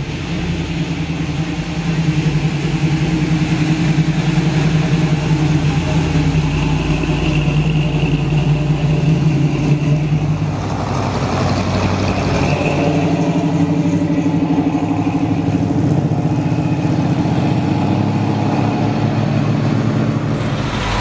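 Plymouth Barracuda muscle car's engine and exhaust running steadily at low revs as it drives past. The engine note changes abruptly about halfway through.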